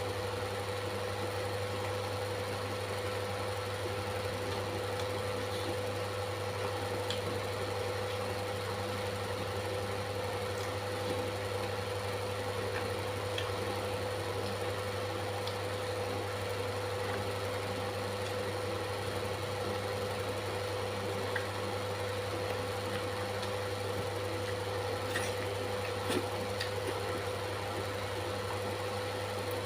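A steady low hum at a constant level, with a few faint clicks.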